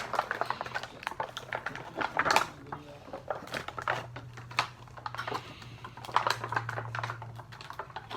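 Hands working at Bakugan toy packaging: a fast, irregular run of small plastic clicks and taps, over a low steady hum.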